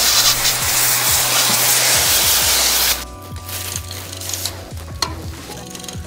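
Water from a hose spray nozzle jetting onto a bicycle, a loud steady hiss that cuts off about three seconds in. After that, light scuffs of a cloth wiping the chain over quiet background music.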